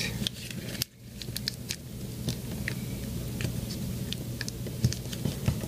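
Origami paper crinkling and crackling as it is folded and creased by hand: an irregular scatter of small sharp ticks over a low steady hum.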